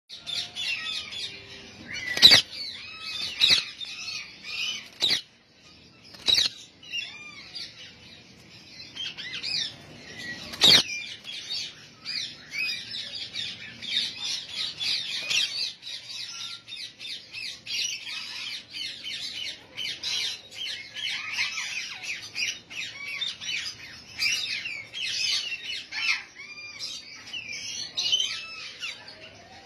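Caged Indian ringneck parakeets with a steady chatter of bird chirps and squawks. A few sharp knocks on the wire cage in the first eleven seconds, the loudest with a burst of wing-flapping as a bird flies across the cage about eleven seconds in.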